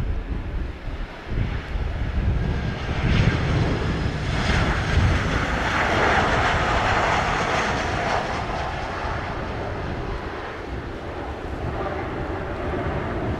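Boeing 737 jet airliner landing: its engines build to a loud, even rush about halfway through, then ease off as it rolls out, with wind buffeting the microphone underneath.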